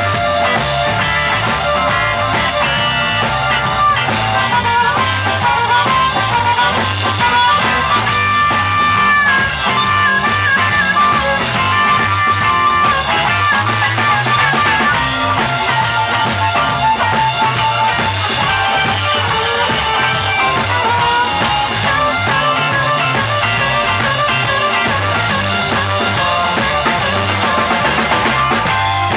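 Live electric blues band playing: a harmonica cupped against a vocal microphone plays wailing, bending held notes over electric guitar, electric bass and a drum kit keeping a steady beat.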